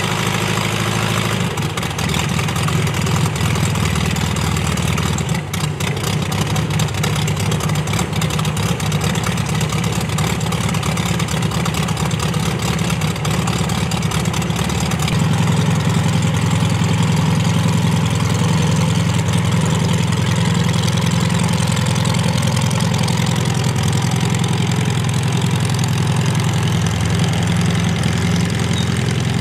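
Volkswagen-based air-cooled flat-four aircraft engine of a Thatcher CX4 running at idle with the propeller turning. The engine note steps up a little about halfway through as the plane begins to taxi.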